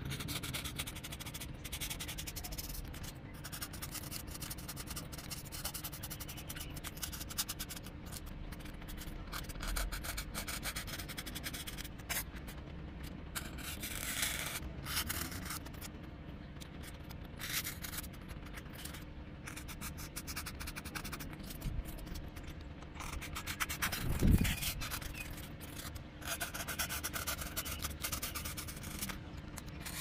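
Snap-off utility knife blade cutting and scraping through a polystyrene foam sheet in many short strokes. A dull thump about three-quarters of the way through.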